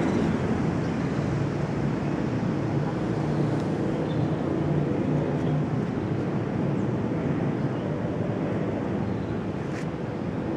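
Steady low rumble of distant city traffic, mixed with wind on the microphone.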